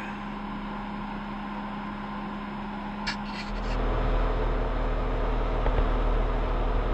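Jeep Wrangler JK running with a steady hum. A short click comes about three seconds in, and half a second later the engine's low rumble grows louder and stays up as the Jeep drives on.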